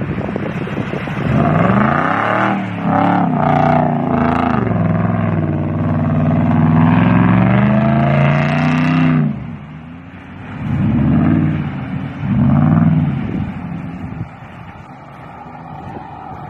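Chevrolet TrailBlazer SUV's engine revving hard under load as it claws up a muddy slope, the pitch rising and falling for about eight seconds. Then come two shorter bursts of revs, and it drops back to a quieter run.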